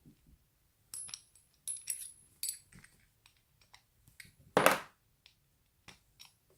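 Small metallic clicks and clinks as an Abus Rock padlock is taken apart with an Allen key, with one louder metallic clatter a little past halfway.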